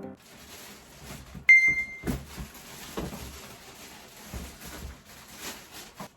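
A single short electronic beep from a household appliance, about a second and a half in, with light knocks and rustling of things being handled before and after it.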